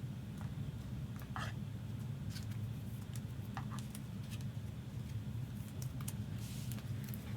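Trading cards being handled: scattered light clicks and short scrapes of cards and their plastic holders being picked up and set down, over a steady low hum.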